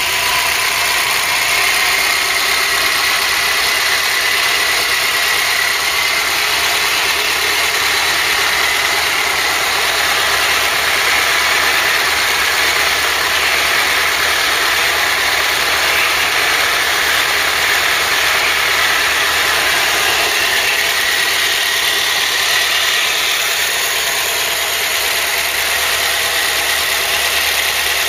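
Freshly rebuilt Ford 2.0 Pinto four-cylinder overhead-cam engine idling steadily. It runs a little tappy on valve clearances that are only at their first setting.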